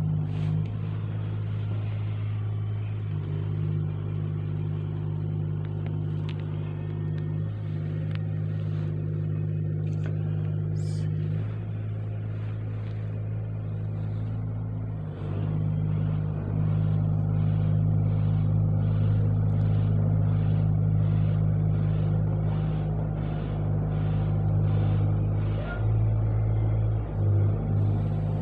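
A steady low mechanical drone, like a motor or engine running, that shifts in pitch and level now and then. Through the second half a faint regular ticking comes in at about one and a half beats a second, then stops.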